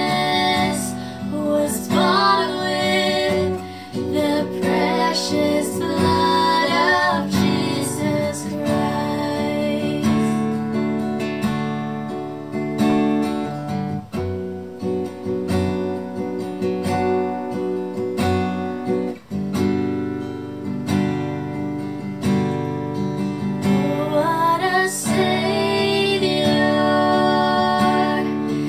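Acoustic guitar strummed under two women singing a worship song; the singing drops out for an instrumental stretch of guitar alone in the middle and comes back near the end.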